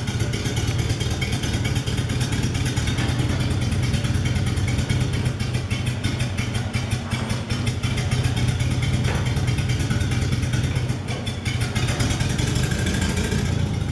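Welding arc on steel, a continuous crackling buzz that starts and stops abruptly.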